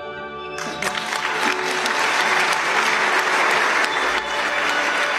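A large audience applauding, the clapping swelling in about half a second in and growing louder, with soft background music underneath.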